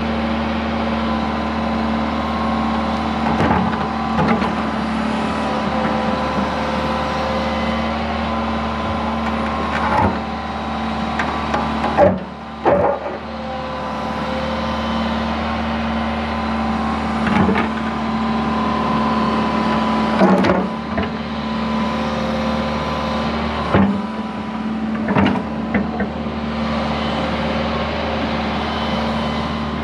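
Diesel construction machine running steadily with a constant hum, with several sharp metal clanks and knocks scattered through, typical of the machine working a rock out of the ground.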